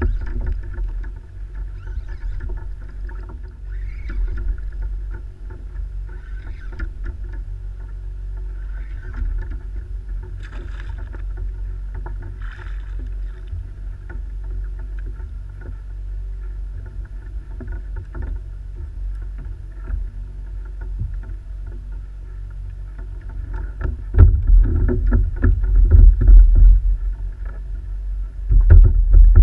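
Water lapping against a plastic kayak's hull, with a low wind rumble on the camera microphone. The rumble swells louder for a few seconds near the end.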